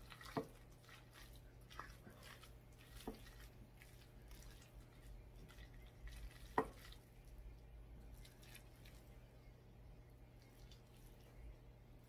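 Quiet stirring of rice in a ceramic bowl with chopsticks and a spoon: soft wet mixing sounds with about four light clicks of the utensils against the bowl, the sharpest about two-thirds through.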